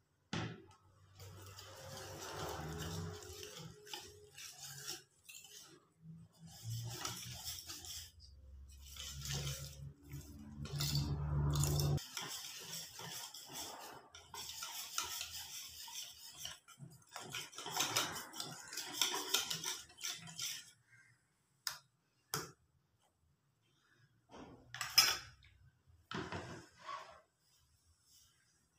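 Wire whisk beating a thick flour batter in a stainless steel bowl, the wires scraping and clinking against the metal in irregular bursts. It thins out in the second half, with only a few separate knocks of metal near the end.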